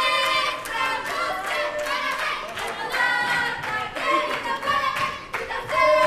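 A group of voices singing a birthday song together, with hands clapping in time.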